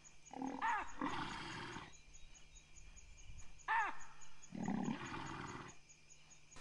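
An African buffalo bull bellows in distress twice, each short call followed by a longer hoarse sound. A lioness is clamping its muzzle, but its lower jaw is still free, so it can still breathe and bellow.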